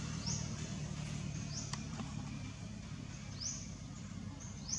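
Four short, high chirps, each sweeping upward, spaced a second or more apart, over a low hum of distant traffic that slowly fades.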